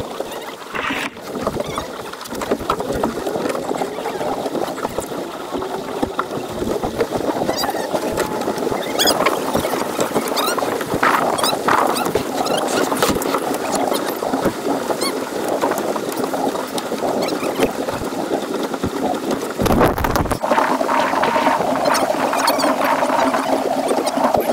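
Water rushing and splashing along the hull of a small sailboat under sail, with wind on the microphone and a brief gust of wind buffeting it about 20 seconds in.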